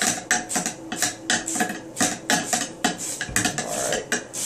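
Nylon chamber brush on a cleaning rod being scrubbed back and forth in the chamber of an M4 upper receiver, the rod clicking and scraping against the metal about three times a second, with a denser stretch of scrubbing just past three seconds.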